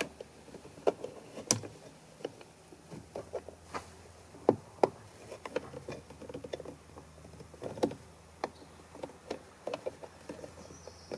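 Aluminium spatula prying a car door mirror's glass off its plastic retaining boss: irregular clicks, taps and creaks of plastic under force.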